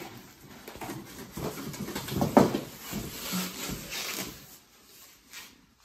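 Plastic bag rustling and a cardboard box scraping as a boxed guitar in its plastic wrapping is lifted out, with one sharp knock about two seconds in, then quieter handling near the end.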